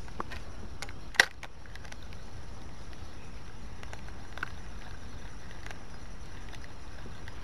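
A single sharp click about a second in, then a few faint ticks over a steady low background hiss: a spinning rod and reel being handled during a cast and retrieve.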